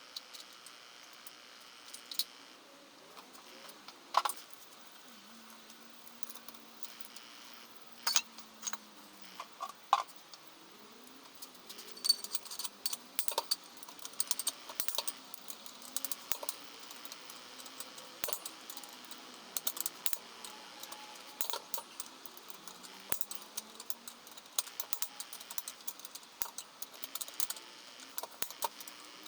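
Irregular sharp metallic clicks and clinks, like tools and small metal parts being handled and set down, growing busier about halfway through.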